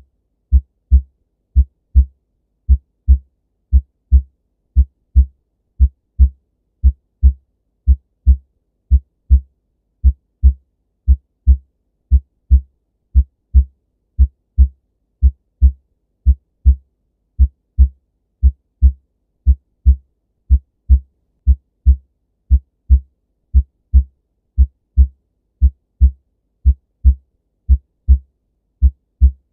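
Normal human heart sounds: a steady, even rhythm of short, low lub-dub thumps (first and second heart sounds) with quiet between them and no murmur.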